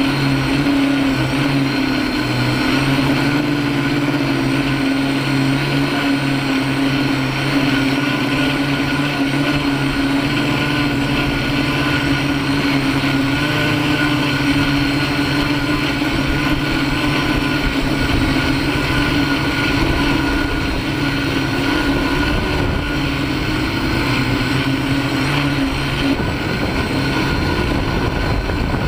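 Six electric motors and propellers of a home-built MikroKopter Hexa hexacopter droning steadily, heard close up from a camera fixed under one of its arms, with wind noise on the microphone. Near the end the steady motor tone breaks up and a low wind rumble grows.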